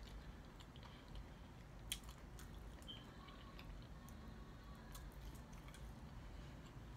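Faint close-up chewing and mouth sounds of a person eating, with scattered soft clicks and one sharper click about two seconds in.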